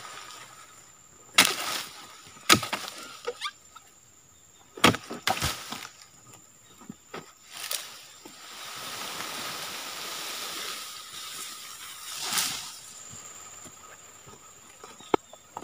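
A dodos, the long-poled chisel used to harvest oil palm, striking and cutting through the stalk of a fruit bunch in a few sharp, separate hits, with the cut bunch dropping to the ground. A longer rustle follows in the middle.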